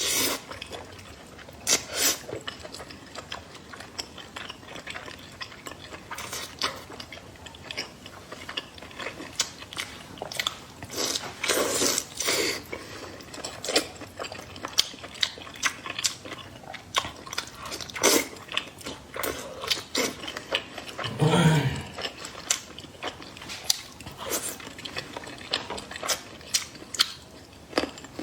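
Close-miked eating: a person chewing and biting food, with many short irregular clicks throughout. A brief low hum of the voice comes about three-quarters of the way through.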